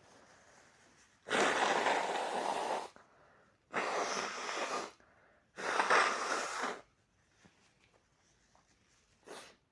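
A person with a head cold blowing their nose hard three times in quick succession, each a steady, noisy blast of about a second and a half. A short, fainter blast of breath comes near the end.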